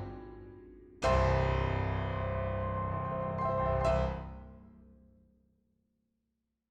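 Background piano music: a phrase dies away, a full chord is struck about a second in and rings out, fading to silence near the end.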